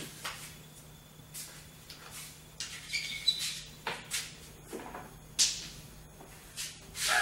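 Scattered short, sharp clicks and knocks of play around pool tables, the loudest about five and a half seconds in, over a faint steady hum.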